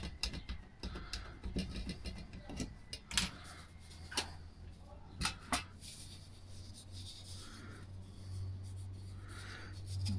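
Hands fitting a plastic dust-extraction port into a pipe and handling the pipe: scattered light clicks and knocks with soft rubbing, mostly in the first half. A low steady hum runs underneath and grows louder near the end.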